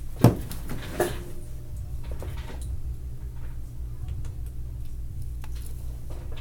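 Two sharp knocks less than a second apart, the first the louder, then scattered light clicks over a steady low hum.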